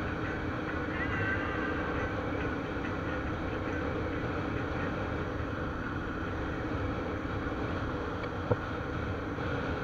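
Motorcycle running steadily at cruising speed, with wind and road noise on the onboard microphone. A single sharp click about eight and a half seconds in.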